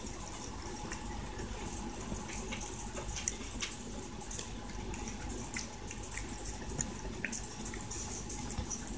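Cat eating wet cat food from a bowl: irregular wet smacking and chewing clicks.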